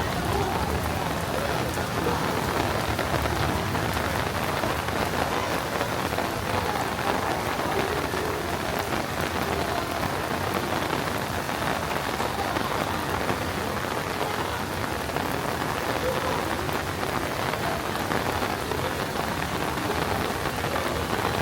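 Steady rain falling, an even rushing patter with no breaks.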